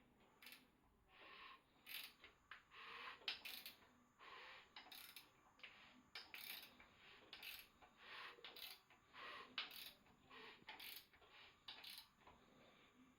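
Faint, irregular metallic clicks, taps and short scrapes of hand work on a Ford Pinto engine's short block as the pistons are fitted.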